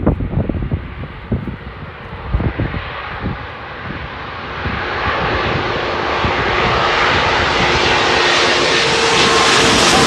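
Airbus A340-600 on landing approach, its four Rolls-Royce Trent 500 turbofans growing steadily louder as it comes in low towards overhead. The sound is a rushing jet noise with a few steady whining tones. Wind buffets the microphone in the first few seconds.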